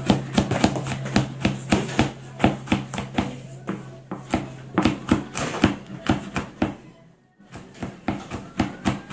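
Chef's knife chopping garlic on a plastic cutting board: rapid, even knocks of the blade against the board, several a second. The strokes break off briefly near the end, then start again.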